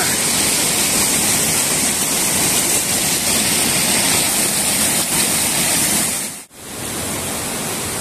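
Rushing white water of a rocky river cascade, a steady hiss. It drops out briefly about six and a half seconds in and comes back a little quieter.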